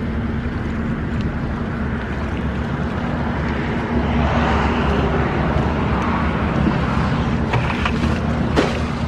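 A small engine running steadily under a broad rushing noise, with a few short sharp knocks or splashes near the end.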